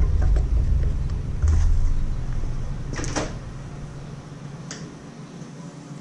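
Hand-tool and parts handling on a lawn tractor engine during carburetor removal: a few scattered knocks and clunks and a short scrape about three seconds in, over a low rumble that dies away after about four seconds.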